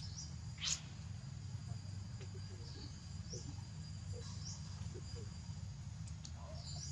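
Short, high-pitched animal chirps, a few scattered through, with one louder sweeping call less than a second in, over a steady low rumble.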